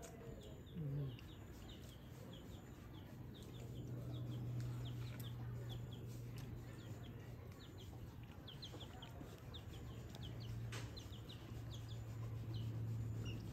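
Small birds chirping in short quick notes, with a chicken clucking and a low steady hum underneath.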